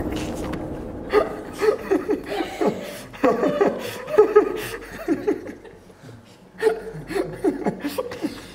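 Hearty laughter in irregular bouts of chuckles. It eases off past the middle and flares up again a little later.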